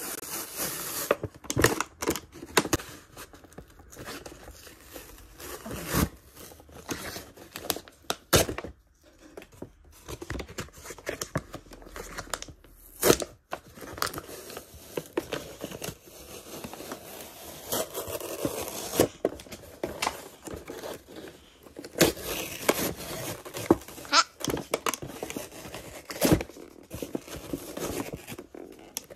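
Hands tearing open thin grey cardboard toy packaging and crinkling plastic wrapping: an irregular run of ripping, crinkling and scraping with sharp clicks and snaps scattered through it.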